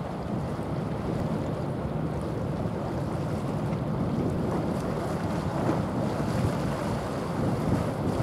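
Steady wind noise on the microphone over the low rush of water churned up by a passing bulk carrier's propeller.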